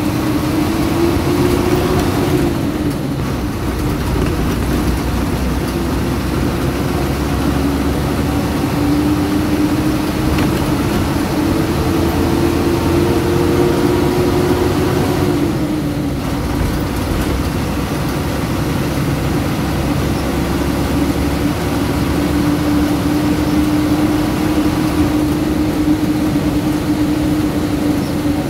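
Ashok Leyland bus's diesel engine and drivetrain running under way over road noise. Its whine climbs slowly and drops back sharply twice, about two seconds in and about fifteen seconds in, as the bus picks up speed and changes gear.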